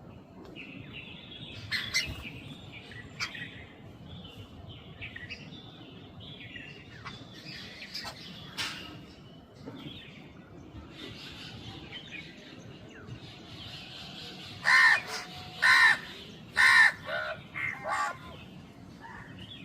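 Small birds chirping sporadically. Near the end a crow caws three times loudly, about a second apart, followed by a few softer caws.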